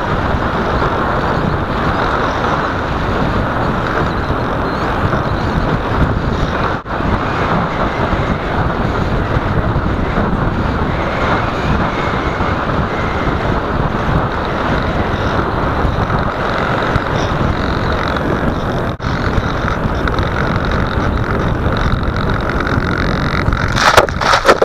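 Onboard sound of a Skysurfer RC foam plane in flight, heard through a keychain camera's small microphone: a steady rush of wind mixed with the hum of its electric motor and propeller. Near the end come a few loud knocks as the plane touches down in grass.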